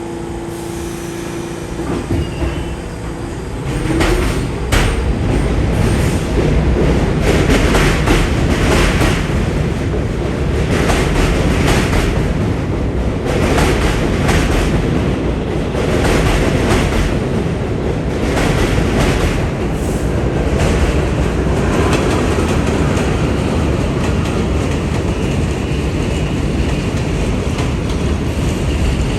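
New York City subway train running through the station, a low rumble building about four seconds in, with repeated clatter of wheels over rail joints.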